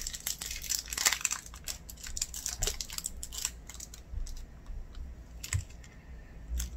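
Soap bar packaging crinkling and rustling as it is handled and opened, busiest in the first second or two, then thinning to scattered light clicks and a few soft bumps.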